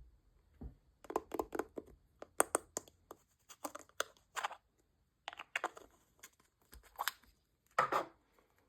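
Slime handled by hand, making a series of short, sticky clicks and crackling pops in irregular clusters, with a longer, louder crackle near the end.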